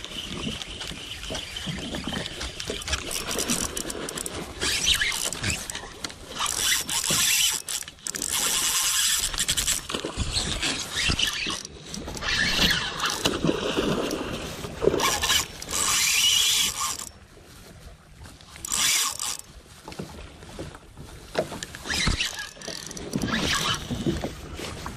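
Sea water slapping and sloshing against the hull of a jet ski sitting still on the water, coming in uneven bursts.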